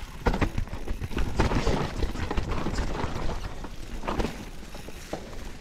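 Trek Remedy full-suspension mountain bike descending a rocky trail: tyres rolling over dirt and dry leaves, with irregular knocks and rattles from the bike over the bumps and a steady low rumble of wind on the microphone.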